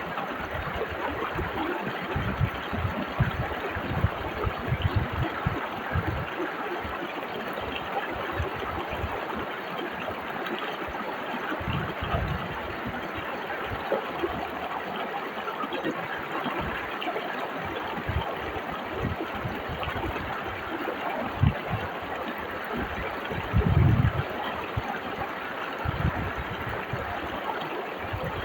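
Whitewater river rushing steadily over rocks, with irregular low thumps through it, the loudest near the end.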